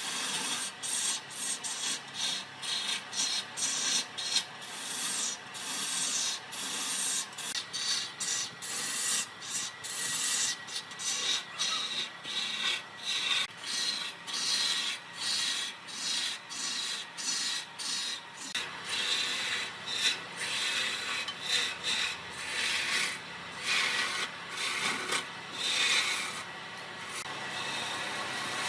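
Repeated hand strokes of an abrasive rubbing back and forth over a hard workpiece, about two a second, easing into a steadier, quieter rub near the end.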